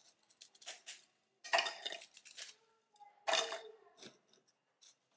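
Ladyfinger biscuits being snapped by hand and dropped into a plastic chopper bowl: crisp cracking and light clattering in several short bursts, the loudest about a second and a half in and again past three seconds.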